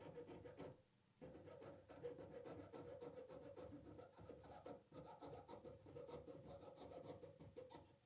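Faint saw strokes cutting metal stock clamped in the vise, a quick back-and-forth rasp with a short break about a second in.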